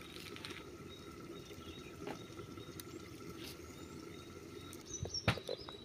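Quiet outdoor ambience with faint bird chirps over a steady low background hum. Two or three sharp clicks come near the end.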